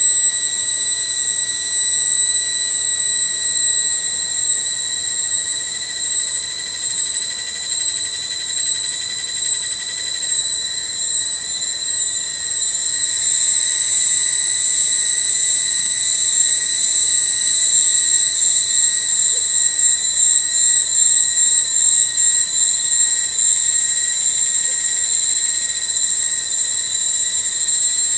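Steady, high, buzzing drone of cicadas, loud throughout, swelling louder about halfway through.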